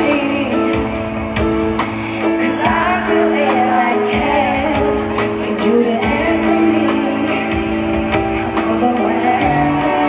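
A woman singing a pop ballad live over held keyboard chords and a steady beat, in a live concert recording.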